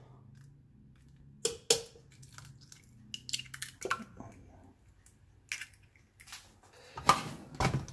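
A hen's egg cracked with two sharp taps, then its shell pulled apart by hand with small crackles, with a louder rustle near the end.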